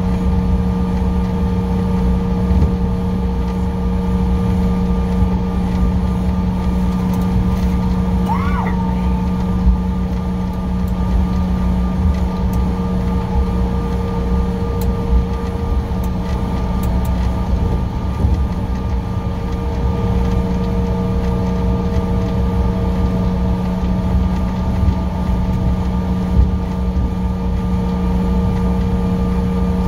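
Steady cabin noise of a Bombardier CRJ700 jet taxiing, its rear-mounted General Electric CF34 turbofans giving a low rumble with a steady hum and a few steady tones. A short high chirp comes about eight and a half seconds in.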